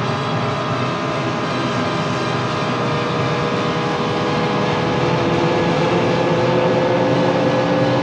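Racing car engines running in a steady, dense drone, with one tone slowly rising in pitch from about three seconds in as the sound grows a little louder.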